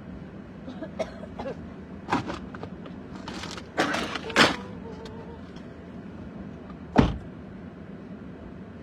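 Steady hum of a car engine running, with a few knocks and scrapes of handling, and one loud thump about seven seconds in.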